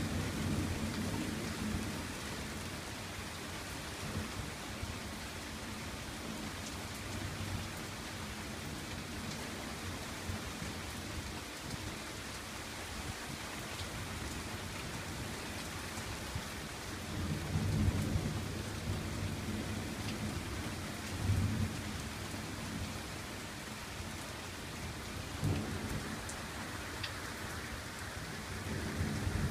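Steady rain hissing throughout a thunderstorm, with several low rolls of thunder: one near the start, a stronger pair about two-thirds of the way in, and another near the end.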